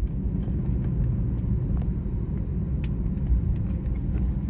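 Steady low rumble in the cabin of an Airbus A321neo with LEAP-1A engines as engine 1 starts, with a few faint clicks.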